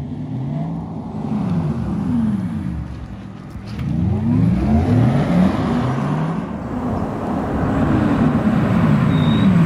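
Porsche Taycan Turbo S electric drive whine, heightened by Porsche's Electric Sport Sound, rising and falling in pitch again and again as the car pulls away and slows at low speed. It is a layered, synthetic spaceship-like hum, likened to the Starship Enterprise or an X-Wing.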